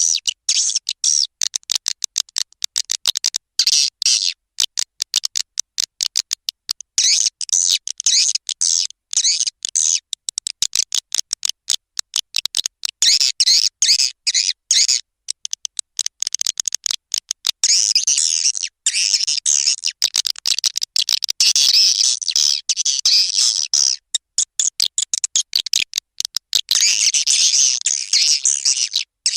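Swiftlet lure recording: dense, high-pitched chirping and twittering of edible-nest swiftlets, chopped into very rapid on-off pulses with brief gaps, the call-and-roost sound played to draw swiftlets into a nesting house.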